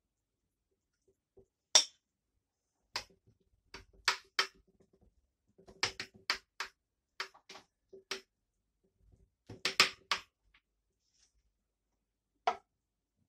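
Metal spoon tapping and scraping against a glass bowl and a ceramic serving plate while a thick yogurt dip is scraped out and spread: a scattered run of sharp clicks and taps with silent gaps, some leaving a faint ring.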